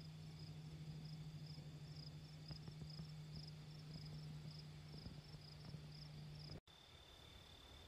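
Faint insect chirping, about two chirps a second, over a steady low hum and a thin high whine. The chirping and the hum cut off suddenly near the end.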